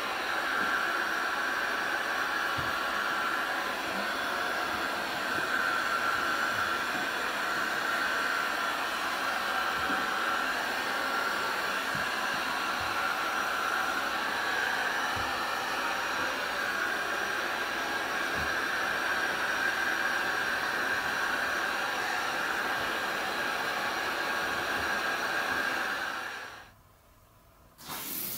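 Heat gun running steadily, a hiss of blown air with a faint whine, warming a freshly laid vinyl decal so it settles onto the door panel. It switches off near the end.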